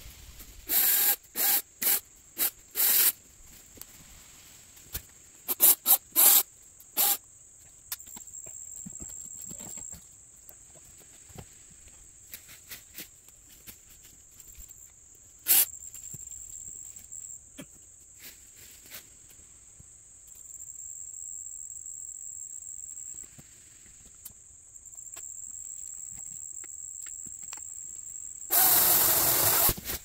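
Insects buzzing steadily at a high pitch. Over the buzz come several loud, short, rasping sounds in clusters near the start and about six seconds in, a single one in the middle, and a longer one near the end.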